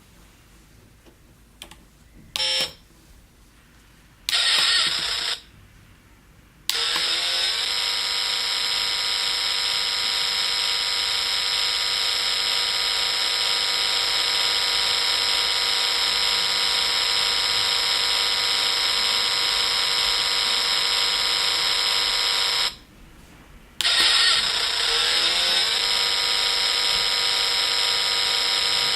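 Synthesized car-engine sound effect from a small electronic sound-effect kit (Kyoritsu KP-SND45). A short blip comes first, then a burst of about a second, then a steady buzzy electronic engine tone from about seven seconds in, its pitch wavering as it comes on. Near the end the tone cuts out for about a second and starts again.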